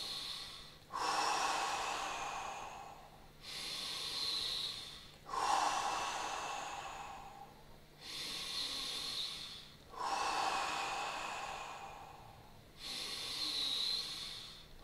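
A person breathing deeply in and out, about three full breaths, each in-breath and out-breath lasting two to three seconds: the deep-breathing phase of Tummo/TT5 breathwork.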